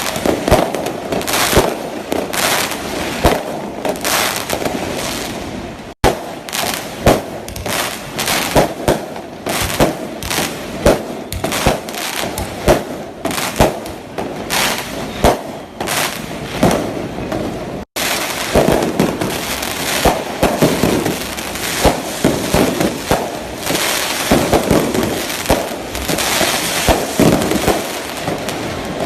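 Many fireworks and firecrackers going off, a dense run of irregular bangs and pops, with two brief sudden breaks where the sound cuts out and resumes.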